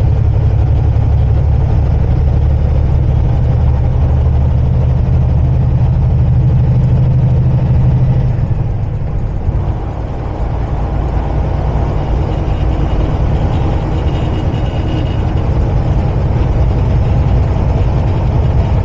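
Semi-truck's diesel engine and road noise heard inside the cab while driving: a steady low drone that eases off about eight or nine seconds in, then builds again.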